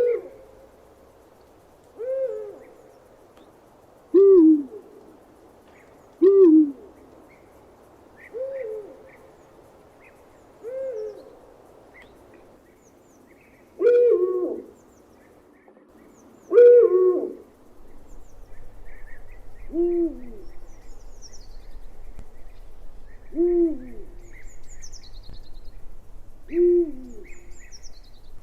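Owl hooting: about eleven single short hoots, roughly one every two to three seconds, each dropping in pitch at its end. From about two-thirds of the way in, a low steady rumble sits underneath.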